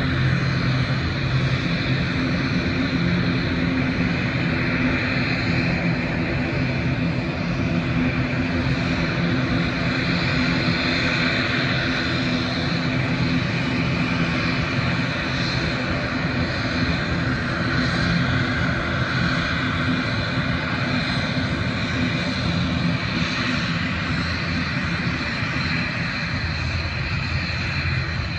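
Airliner engines running on the airfield, a steady loud drone with a low hum that holds throughout.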